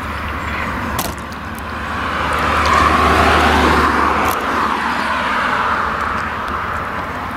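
Tractor running while it pulls a rotary hay rake through the cut grass: a steady low engine sound under a rustling, clattering noise of the rake that swells to its loudest about three seconds in, with two sharp clicks, one about a second in and one after four seconds.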